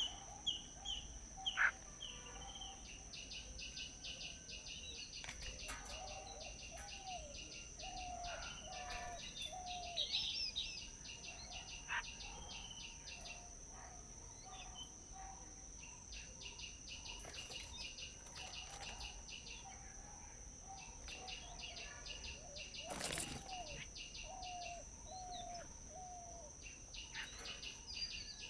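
Wild birds chirping and calling: runs of short, low repeated notes and quick higher chirps over a rapid buzzing trill that comes and goes, all over a steady high-pitched tone. A single sharp click about 23 seconds in is the loudest sound.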